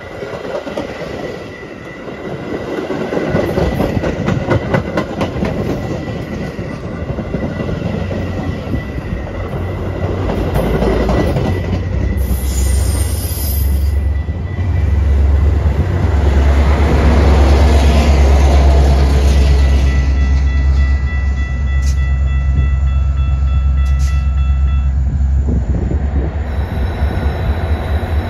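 Metra bilevel commuter train rolling past and slowing, its wheels clicking over rail joints with a thin, steady squeal of wheels or brakes. From about halfway through, the MP36PH-3S diesel locomotive at the rear comes alongside, and its engine's loud, steady low rumble takes over.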